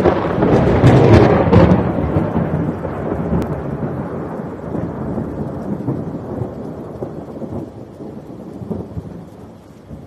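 Thunder sound effect: loud cracking claps in the first couple of seconds, then a long rumble that slowly dies away.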